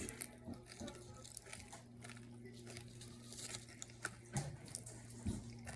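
Sour Pop Rocks popping candy crackling and fizzing in the mouth as faint, irregular little pops, over a steady low hum.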